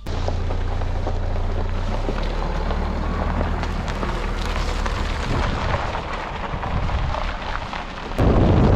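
A vehicle on the move: a steady low rumble under a rough rushing noise. About eight seconds in the rush turns suddenly louder and harsher.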